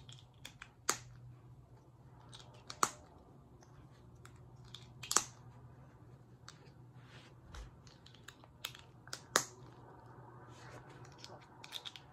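Sharp plastic clicks and snaps, scattered a second or more apart, from handling a GAN 13 Maglev speed cube as its center caps are pressed back into place.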